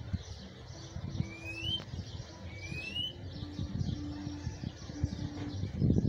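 Caged Cuban bullfinch (negrito) singing two thin rising notes, one about a second in and the next a second and a half later.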